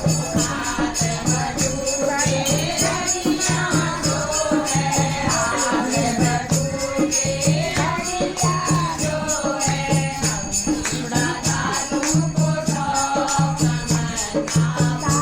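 A ceremonial mangal geet for the sacred-thread ceremony: a sung melody over a steady low beat, with shaken rattle or tambourine jingles keeping time.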